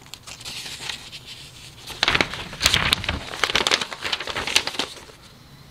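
Paper pages of a model kit's instruction booklet being handled and turned: a crisp rustling and crackling of paper. It is loudest from about two seconds in to near the end.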